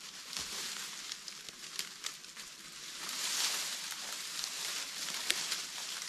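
Dry dead branches and brushwood rustling and crackling as they are gathered into an armful and lifted, with scattered sharp snaps of twigs.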